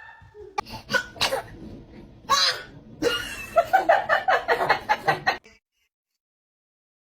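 A baby sneezing, with a sharp burst about two and a half seconds in after a few smaller breathy bursts, followed by a couple of seconds of laughter; the sound cuts off to silence about five and a half seconds in.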